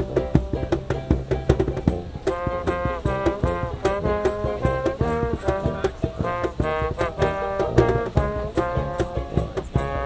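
Small street band playing: a trombone carries the melody from about two seconds in over a tuba bass line, a strummed string instrument, and a steady beat slapped on a cajón.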